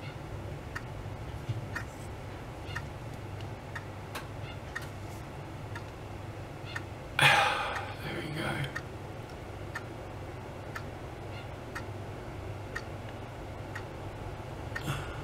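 Faint, evenly spaced ticking of a clock over a steady low room hum, with a short burst of louder noise about halfway through.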